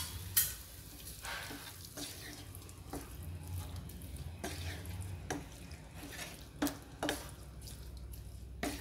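Wooden spatula stirring cauliflower and peas through a wet masala in a non-stick frying pan, with short scraping strokes about once a second and a wet, watery sound from the water just added to the pan.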